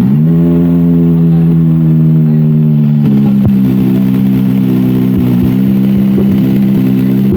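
Kawasaki Ninja ZX-25R's inline-four engine breathing through an aftermarket Akrapovic R8 exhaust, held at a steady high engine speed. Its pitch steps down slightly about three seconds in, then holds steady again.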